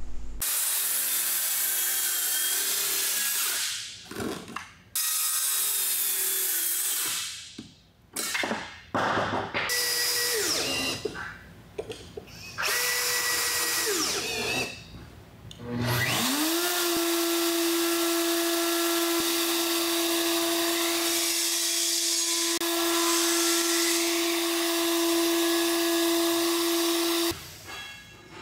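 Power tools cutting wood: a string of short bursts, among them a cordless drill driving screws. About 16 s in, a router spins up with a rising whine and runs steadily at one pitch for about eleven seconds, trimming the top of a wooden stanchion flush between clamped guide blocks, then cuts off shortly before the end.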